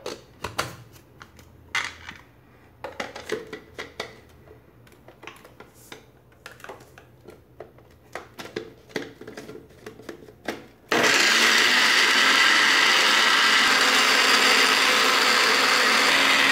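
Plastic clicks and knocks as a small personal blender's jar of peeled garlic cloves is closed and set onto its base; about eleven seconds in, the blender motor switches on suddenly and runs steadily, chopping the garlic coarsely.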